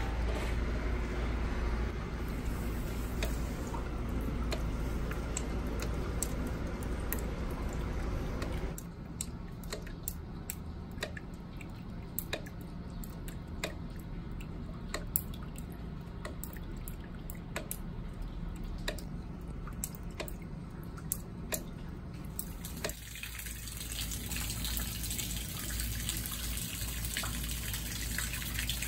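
Storm water dripping into a flooded room, landing in puddles on a tile floor as sharp, irregular drips several a second. Before and after the drips, a steady wash of noise.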